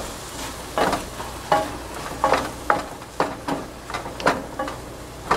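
A spatula stirring and scraping mushrooms and kale around a non-stick frying pan, a stroke about every half second, over a steady sizzle. The vegetables are cooking at medium heat in the water they have released.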